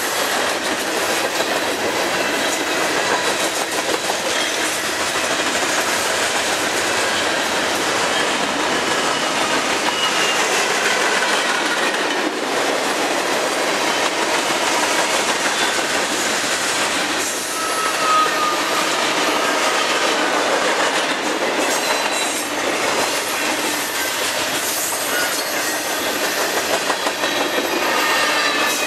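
Freight train cars (covered hoppers, tank cars, boxcars and flatcars) rolling steadily past on the track: the constant rumble of steel wheels on rail with clickety-clack over the rail joints and a few brief high wheel squeals.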